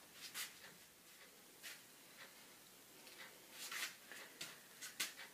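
Electric drum carder running, its toothed drums combing wool: faint, irregular scratchy rustles and light clicks, with a faint steady motor hum joining about three seconds in.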